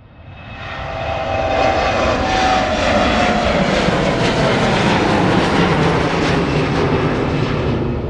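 Airplane taking off, its engines at full power: the noise swells over the first second or so to a loud, steady rush with a whine that falls slightly in pitch, then begins to ease near the end.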